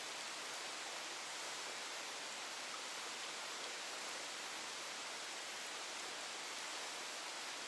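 Steady, even hiss of water in a wet rocky gorge, from rain and trickling water, with no distinct splashes.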